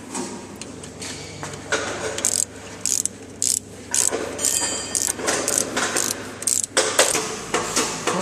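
Ratchet wrench clicking in short, irregular runs as a bolt is worked with a socket.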